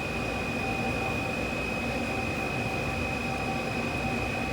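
Spindle of a Mazak MTV 515/40N vertical machining center running at a constant speed: a steady high whine over an even mechanical hum, holding one pitch throughout.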